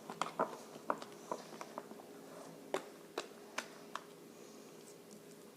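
Freshly made fluffy shaving-cream slime being worked, giving irregular sticky clicks and squelchy pops that thin out after about four seconds.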